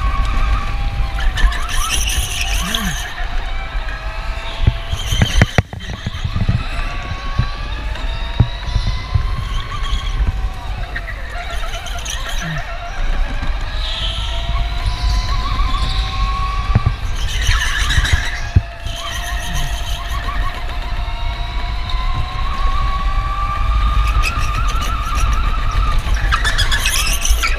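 Electric go-kart running flat out, its motor whine rising and falling in pitch with speed, with tyres squealing in short bursts through the corners over a steady low rumble.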